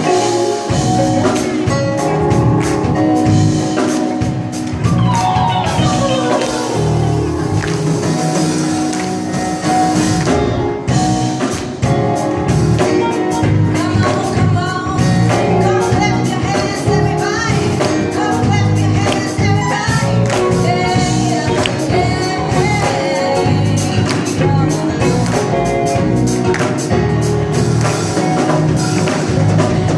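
Live gospel music: women singing into microphones over a band with drums and electric guitar, with a steady beat. About five seconds in, a vocal or guitar line slides down in pitch.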